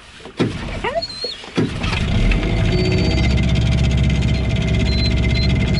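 Suzuki 9.9 outboard motor being pull-started: the first pull near the start doesn't catch, the second about a second and a half in does, and the motor then runs steadily. A dog whines over the pulls.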